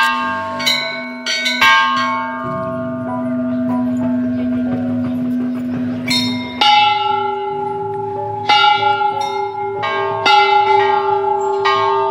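Large hanging Hindu temple bells struck again and again by hand-pulled clappers. Several bells of different pitches ring over one another with long ringing tones, and there is a new cluster of strikes from about halfway through.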